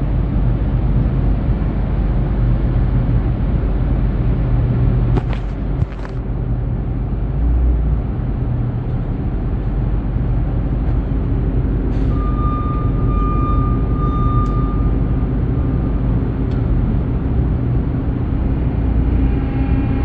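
Heavy diesel truck engine running steadily, with two sharp clicks about five and six seconds in and a steady high whine for a few seconds past the middle.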